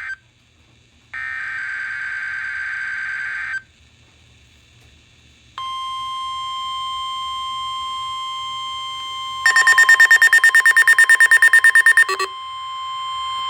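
NOAA Weather Radio test alert. About a second in there is a harsh two-second burst of SAME digital header data. From about five and a half seconds the steady 1050 Hz warning alarm tone runs, and for nearly three seconds in the middle it has rapid pulsing beeps, about nine a second, over it.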